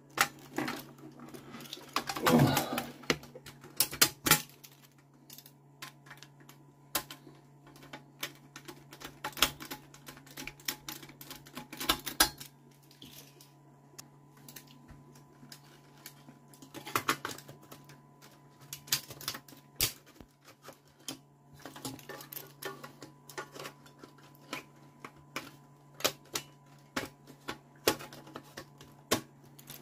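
Irregular clicks and metallic taps of a screwdriver and screws working on a sheet-metal amplifier lid as it is fitted and screwed down, some in quick clusters. A steady low hum runs underneath.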